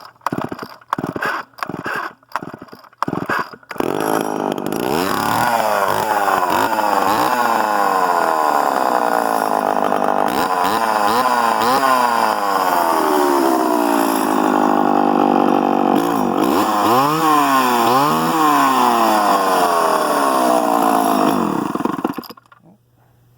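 Poulan 361 two-stroke chainsaw being started: a few seconds of choppy, stuttering bursts, then the engine catches and runs continuously, its speed rising and falling as the throttle is worked, with a couple of quick revs near the end before it cuts off suddenly.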